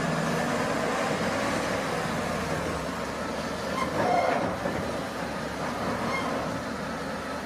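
Heavy multi-axle mobile crane driving slowly along a road: its diesel engine and many tyres give a steady running noise, slightly louder about four seconds in.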